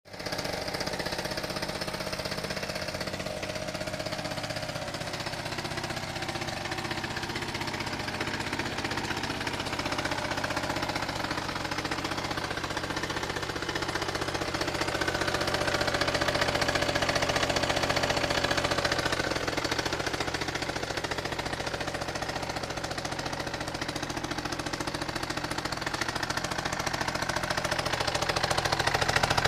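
Minarelli 50 cc two-stroke scooter engine idling steadily through an aftermarket expansion-chamber exhaust, with a rattly two-stroke beat. It swells a little in level about halfway through, then settles again.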